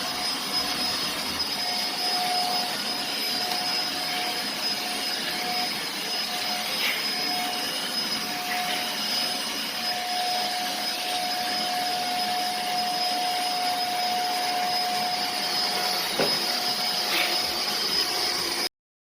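Deerma DX115C handheld vacuum cleaner running steadily, a rushing airflow with a high, steady whine and a fainter mid-pitched tone. The sound cuts off abruptly near the end.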